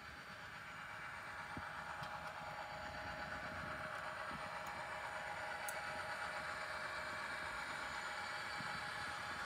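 ScaleTrains Rio Grande SD40T-2 model diesel locomotive running with its train, a steady mechanical running sound that grows gradually louder as it comes out of the tunnel.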